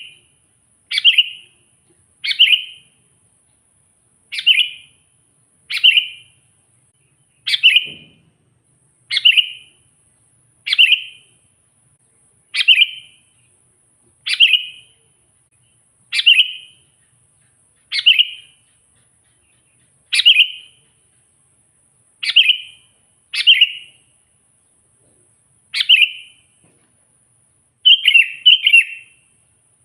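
Sooty-headed bulbul (kutilang) calling: a short, sharp note repeated about every one and a half seconds, turning into quick double and triple notes near the end. It is a rival-challenging call, used to provoke and lure wild bulbuls.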